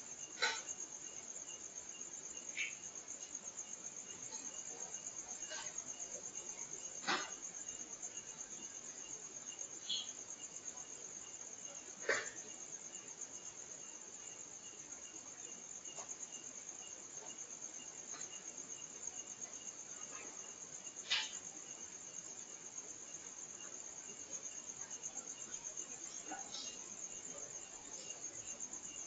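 Crickets trilling steadily at a high pitch at night. About half a dozen sharp knocks or taps break in, a few seconds apart, with the loudest about 12 and 21 seconds in. The knocks are of unknown origin, and the uploader likens them to someone striking objects.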